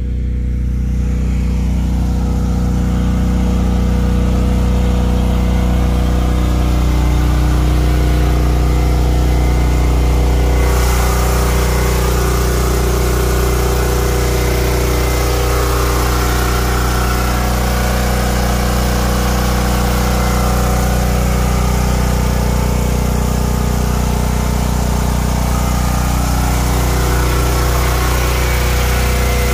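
Ridgid 6800-watt portable generator with its Yamaha engine running at steady speed under load, powering the inverter and charging the battery bank. It is muffled by its enclosure at first, then sounds fuller and brighter about ten seconds in as the shed lid is opened.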